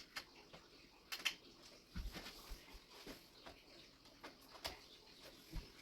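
Faint, irregular clicks and light knocks of computer cables and plastic connectors being handled and plugged in inside a PC case.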